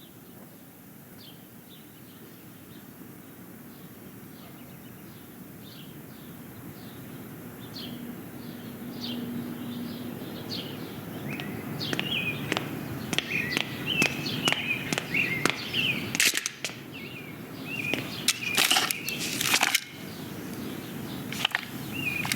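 Birds chirping over a steadily swelling background hiss, with the chirps growing louder and busier about halfway through. Several sharp clicks and knocks come in the second half.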